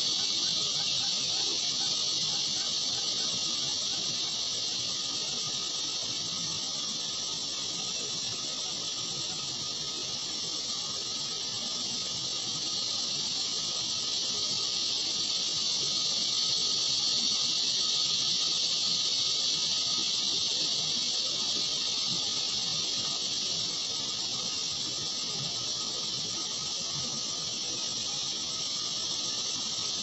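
Steady high-pitched hiss that swells and eases slightly in level, with no distinct calls or knocks.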